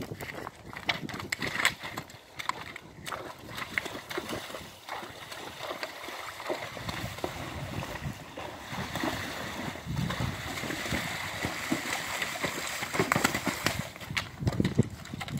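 A pony wading through a muddy pond, its legs splashing and sloshing through the water. Near the end come heavier hoof knocks as it scrambles out onto the muddy bank.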